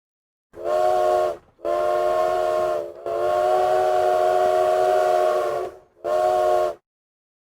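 Chime train whistle sounding a chord of several notes in four blasts: a short one, two longer ones run almost together, and a short one.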